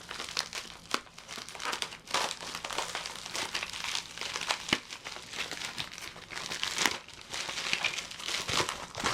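Plastic packaging crinkling and crackling as it is handled and opened, with a few sharper clicks.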